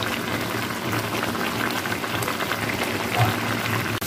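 Blended spice paste bubbling and sputtering steadily as it cooks down in a pan, the water from blending cooking off, with a spoon stirring through it.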